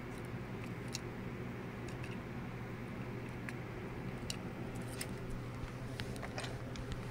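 Small scattered clicks and ticks of a die-cast metal toy car being handled and turned over in the fingers, over a steady low hum.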